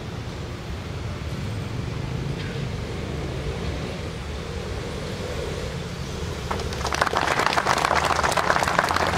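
Steady low background hum, then an audience breaking into applause about seven seconds in, many hands clapping fast and irregularly as the medal is presented.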